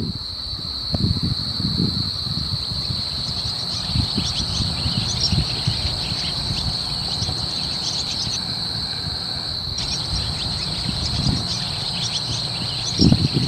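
Steady high-pitched insect chorus, a continuous trill, over a low uneven rumble that grows louder near the end.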